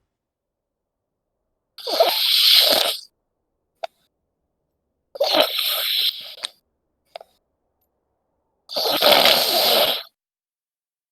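Loud snoring: three harsh, noisy snores about three and a half seconds apart, each lasting just over a second, with silence between them.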